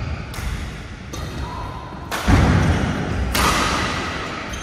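Badminton rally: rackets striking the shuttlecock about four times, roughly a second apart, each hit a sharp crack with a short echo, and players' feet thudding on the court, loudest about two seconds in.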